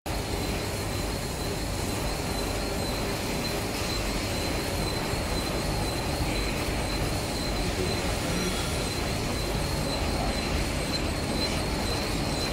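Three-side sealing wet wipe packaging machine running: a steady mechanical din with a thin, high, steady tone held over it.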